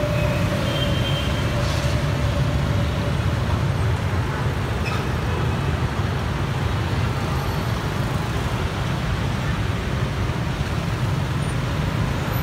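Steady street traffic noise: a continuous low rumble of passing vehicle engines, with a faint held tone fading out over the first few seconds.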